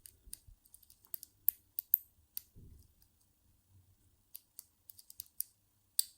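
Lock pick and tension tool working the pin stacks of a brass ABUS 65/40 padlock: irregular small metallic clicks and ticks as the pins are pushed and set, a few sharper clicks standing out, the loudest near the end. The lock has spool pins that keep dropping it into full (false) sets.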